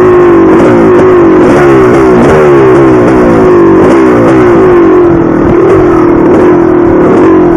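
1983 Maico 490 two-stroke single-cylinder dirt bike engine running loud under way, its pitch rising and falling again and again as the throttle is worked, then holding steadier near the end.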